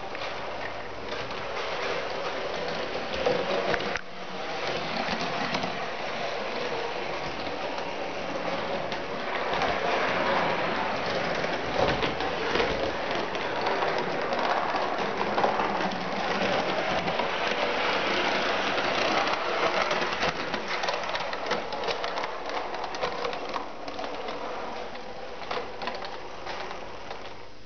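Model Sydney R1 class tram running along its track: a steady mechanical running noise from its drive, with frequent light clicks and rattles of the wheels on the rails.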